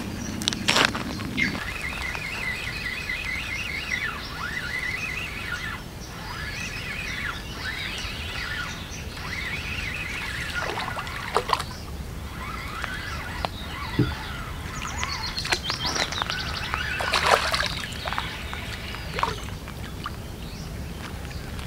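Songbirds singing, with many chirps and trills overlapping, and a few sharp clicks in between.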